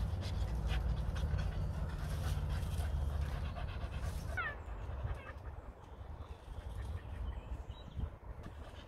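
Spaniel panting rapidly at close range over a low rumble, the panting dying down about halfway through, with a brief high squeak around the middle.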